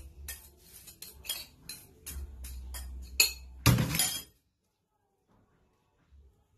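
A spoon clinking against a plate as dry seasonings are stirred together, about three to four quick clinks a second. A louder knock comes just before four seconds in.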